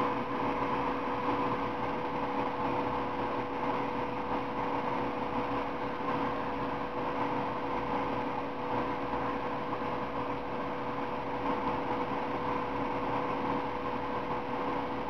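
Steady background hum and hiss with a constant mid-pitched tone, unchanging throughout; no distinct clicks or handling sounds stand out.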